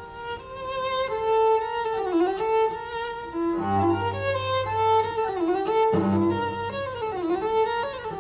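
A bowed violin plays a lyrical melody with vibrato. Lower notes sound beneath it twice, around the middle and again about two thirds of the way through.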